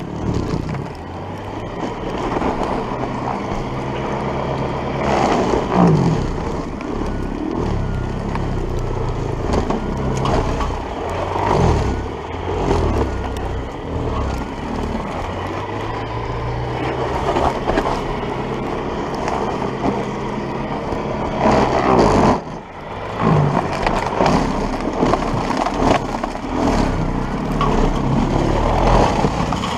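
Electric-converted MTD single-stage snowblower running under load in deep snow: the high-current motor's hum, its pitch wavering, over the churn of the auger throwing snow. There is a short drop in level about two-thirds of the way through.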